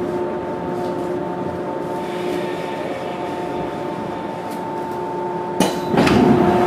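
Interior sound of a JR 415 series electric train slowing to a stop: a steady hum with several constant tones over a low running rumble. Near the end a sharp click is followed by a louder hiss of air.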